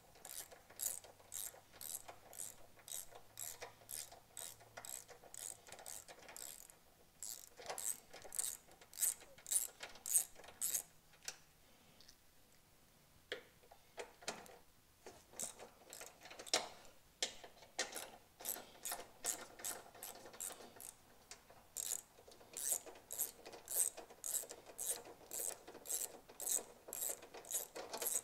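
Hand ratchet wrench clicking in quick, even strokes, about two or three a second, as bolts are backed out. The clicking stops for about two seconds midway, then picks up again.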